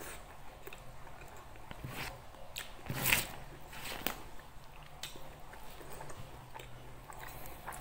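Close-miked mouth sounds of a person chewing a mouthful of nasi Padang, rice with beef rendang: small wet clicks and smacks, with one louder bite about three seconds in.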